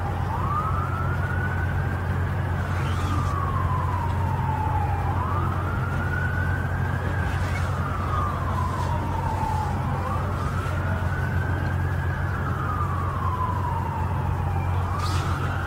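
An emergency vehicle's siren in a slow wail: it rises over about two seconds, falls back a little more slowly, and repeats about three times.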